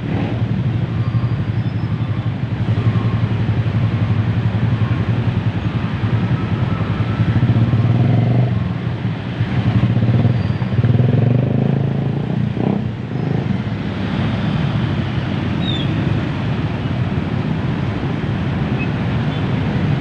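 Dense, slow-moving road traffic: a steady drone of idling and creeping motorcycle and car engines, swelling and easing as vehicles pull past, with a few higher engine notes and faint horn-like tones.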